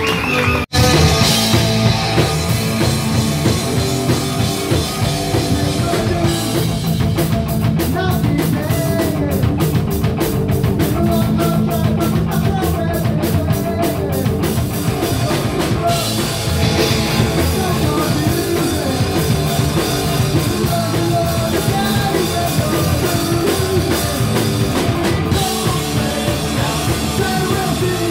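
Punk rock band playing live: distorted electric guitar, bass guitar and a drum kit with fast cymbal strokes, and a shouted lead vocal. The sound cuts out briefly about a second in, then the full band runs on steadily.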